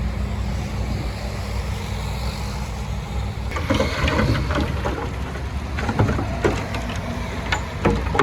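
Diesel engine of a heavy earthmoving machine running steadily with a low drone. About halfway through, a run of irregular clanks and rattles starts over it and carries on to the end.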